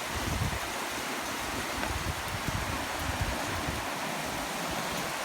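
Steady rush of a rain-swollen creek overtopping its bank, with uneven low rumbling underneath.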